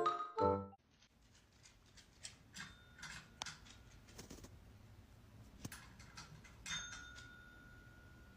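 A closing note of music, then faint scattered clicks and taps with two light bell-like dings, the second ringing on for over a second.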